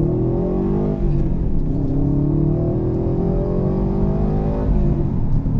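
2020 Subaru WRX STI's turbocharged 2.5-litre flat-four with an aftermarket AWE exhaust, heard from inside the cabin under hard acceleration. The engine note climbs, drops at an upshift about a second in, climbs steadily for nearly four seconds, then drops at another upshift near the end.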